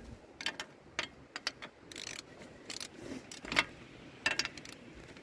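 Irregular metallic clicks and clinks as lug nuts are put on a donut spare wheel and worked with a wrench.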